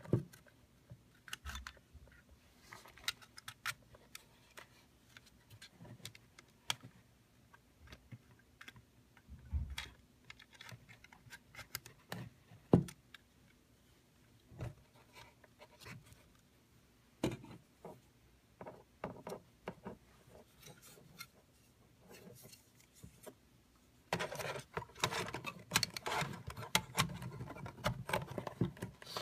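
Hard plastic clicks, taps and rubbing from handling an Antra AF220 auto-darkening welding filter cartridge and the helmet's plastic filter retainer, with one sharp click about 13 seconds in. Over the last five seconds there is a denser spell of scraping and rattling as the filter is worked into the helmet.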